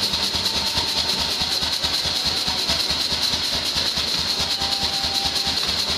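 Power hammer working hot steel bar, a fast, even run of blows over a steady hiss of air.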